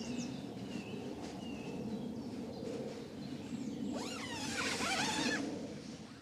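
Wild birds singing in woodland over a steady low rushing background: scattered short chirps, then a loud, fast phrase of sweeping, trilling song about four seconds in that lasts just over a second.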